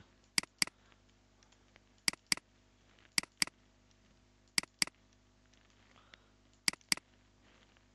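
Computer mouse double-clicked five times: sharp paired clicks about a quarter second apart, with one to two seconds between pairs, as words are selected in a code editor.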